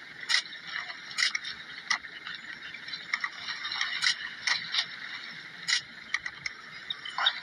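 Splashing and scuffling in shallow water as spotted hyenas tear at a hippo, with irregular sharp clicks and snaps over a steady rushing noise.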